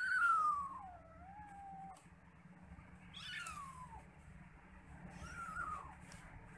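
Young kittens mewing three times in high calls that fall in pitch. The first and loudest is a long, wavering call of about two seconds, and two shorter ones follow. These are calls from kittens whose mother cat is missing.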